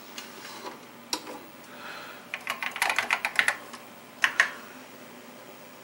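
Typing on an Apple IIe keyboard, with a quick run of about ten keystrokes keying in a DOS SAVE command. Two louder key presses follow near the end.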